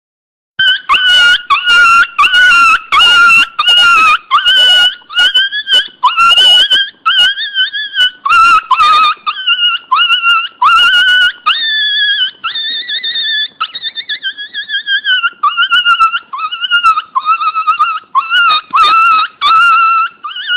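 Dog whining: a loud, high-pitched whine that wavers up and down in pitch, broken into many short cries with brief gaps. The cries come choppier and more clipped in the first half and longer and smoother later.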